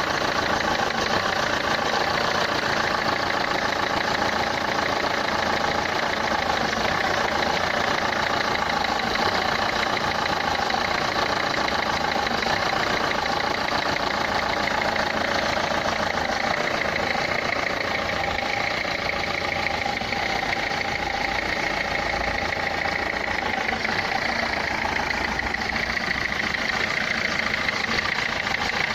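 Renault Clio 3 1.5 dCi four-cylinder common-rail diesel engine idling steadily, with a noise that the title puts down to the fuel injectors.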